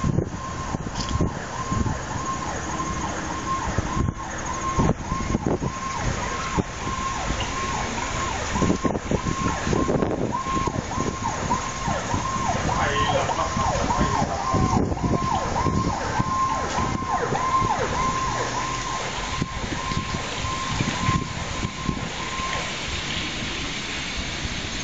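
Emergency vehicle siren in a fast repeating yelp, wailing down and back up two or three times a second, fading out a little before the end, over a steady rumble of city traffic.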